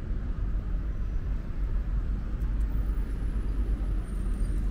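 City street ambience: a steady low rumble with no distinct events.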